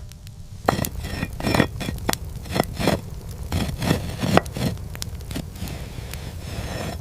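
Irregular clinks, knocks and scrapes of hard objects being handled, about a dozen sharp strikes over a few seconds, some with a short ring, over a steady low rumble.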